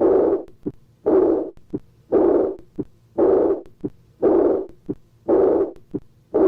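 Recorded heart sounds of aortic regurgitation: with each beat, about once a second, a short heart sound is followed by a high-pitched, blowing, decrescendo diastolic murmur that starts loud and fades away.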